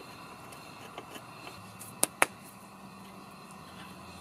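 Campfire crackling: scattered faint ticks and two sharp pops about a fifth of a second apart, about two seconds in.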